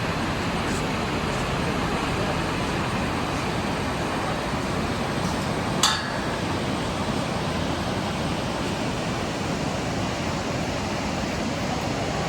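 Steady rushing noise with a single sharp click about six seconds in.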